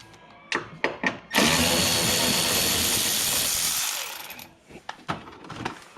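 A few sharp clicks, then a power drill/driver whirring steadily for about three seconds as it spins out a screw holding the car's plastic under tray, before winding down.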